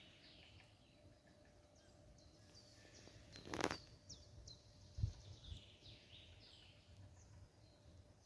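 Faint birdsong: several birds giving short, falling chirps over a quiet outdoor background. About three and a half seconds in there is one short burst of noise, and about a second later a few low thumps.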